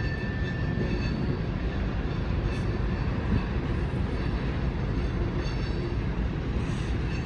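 Union Pacific manifest freight train led by an EMD SD70ACe, approaching up the grade, heard as a steady low rumble.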